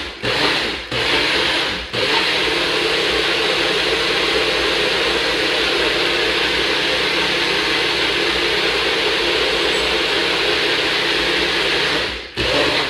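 NutriBullet personal blender motor running as it blends a banana-and-blueberry smoothie. It starts in short pulses over the first two seconds, then runs steadily, with a brief cut near the end.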